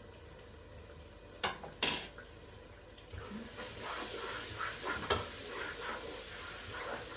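A utensil knocks twice against a pot of egusi soup, then scrapes and stirs in it repeatedly, with a hiss of cooking rising from about three seconds in.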